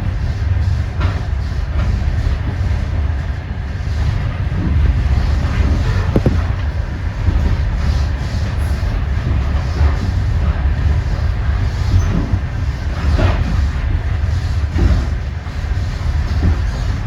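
Passenger train running along the track: a steady low rumble from the carriage and wheels on the rails, with a few brief squeaks and clicks.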